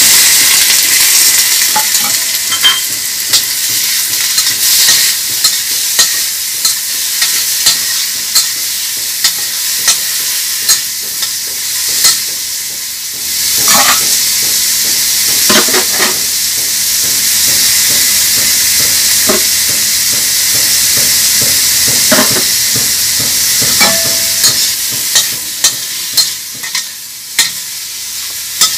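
Bacon, crab meat and sausage sizzling in hot oil in a stainless steel wok, with a utensil knocking and scraping against the metal pan as the food is stirred, the knocks coming more often near the end.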